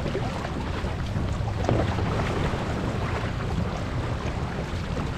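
Wind buffeting the microphone over the wash and splash of water along an outrigger canoe's hull as the crew paddles.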